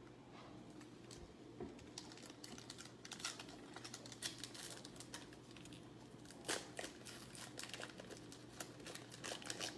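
Trading-card pack wrappers being handled and opened: quiet, irregular crinkling and light clicks that grow busier after about a second.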